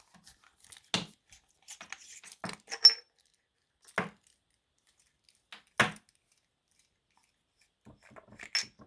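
Metal parts of a dive flashlight clicking and clinking as they are handled and unscrewed: a handful of separate knocks, the sharpest about three seconds in and another near the end, each with a brief high metallic ring.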